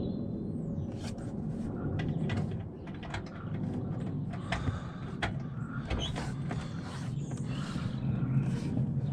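Plastic car door trim being handled and pressed into place: irregular clicks and creaks, over a steady low hum.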